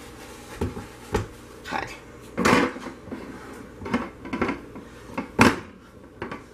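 A handful of sharp knocks and clatters as a soap-loaf mold liner is handled and set into its wire mold frame, the loudest about two and a half and five and a half seconds in.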